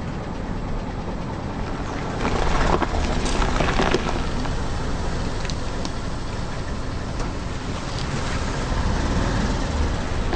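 A car tyre rolling slowly over a head of broccoli and a cauliflower on asphalt, crushing them. There is a burst of crunching and snapping about two to four seconds in, over the low rumble of the car's engine and tyres, and more crackling near the end as the wheel rolls back over the remains.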